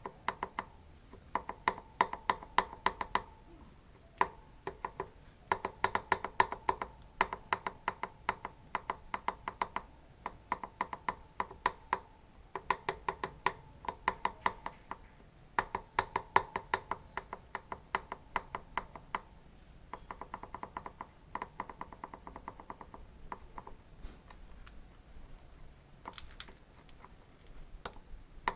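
Yamaha XT660Z's steel drive chain rattled by hand against the rear sprocket teeth: rapid runs of sharp metallic clicks with a slight ring, in bursts of a second or two with short pauses, as the play between chain and sprocket is checked.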